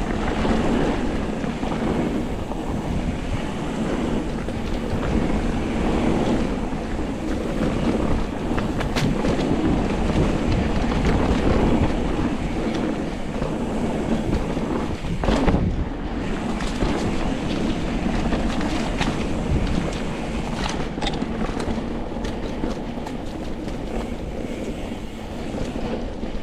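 Wind rushing over the microphone and the tyres of a mountain bike rolling over a dirt trail on a descent, with a few sharp knocks from the bike hitting bumps.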